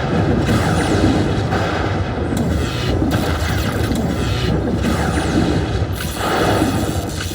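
Slot machine game sounds: electronic music and effects with repeated booming crashes.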